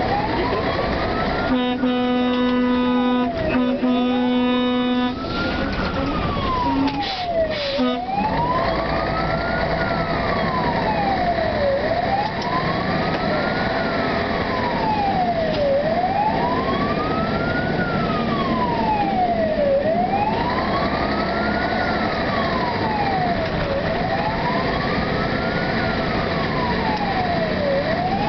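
Fire engine's wailing siren, rising and falling about once every four seconds, over the truck's engine and road noise. A couple of seconds in, a horn sounds in two long blasts, then two short toots a few seconds later.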